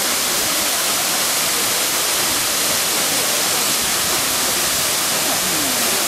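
Minoo Falls, a waterfall of about 33 m, crashing into its plunge pool: a steady, unbroken rush of falling water.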